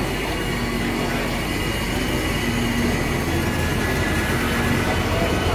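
1971 Plymouth 'Cuda's V8 engine running at low speed as the car rolls slowly past, a steady low drone.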